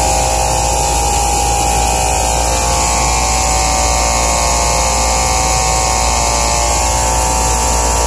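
An old Engineered Air rooftop condensing unit running: a steady machine hum and rush of air, with a faint steady whine above it.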